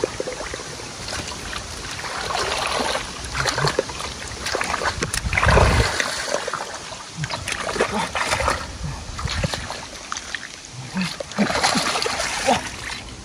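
Water splashing and sloshing irregularly as hands work in a flooded hole while hand fishing for catfish, with one heavier splash about halfway through.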